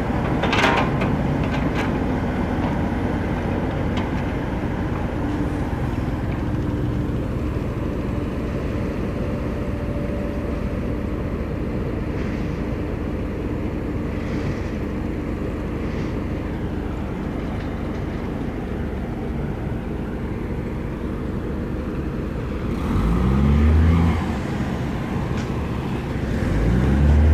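Diesel engines of heavy construction machinery running steadily. Near the end an engine revs up twice, rising in pitch, which is the loudest sound.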